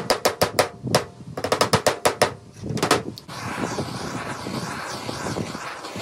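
Claw hammer tapping nails into a wooden bird-feeder kit in two quick runs of light strokes, about six a second, with a couple more near three seconds in. Then a gas torch flame comes on and runs with a steady hiss.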